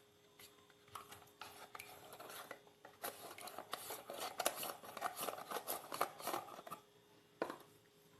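A spoon clinking and scraping against a bowl in a run of quick light strokes, then one sharp click near the end.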